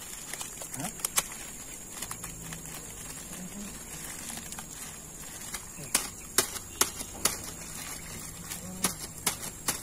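Insects chirring in a steady high-pitched drone, with a string of sharp clicks and taps from about six seconds in.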